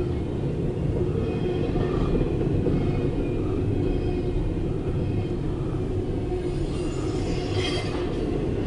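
Intermodal freight train's container cars rolling past, a steady rumble of steel wheels on rail, heard from inside a car.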